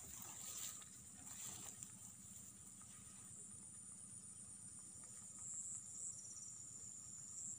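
Faint chorus of insects in the rice fields, a steady high-pitched trill, with a short rapid chirp about six seconds in. Light rustling in the first couple of seconds.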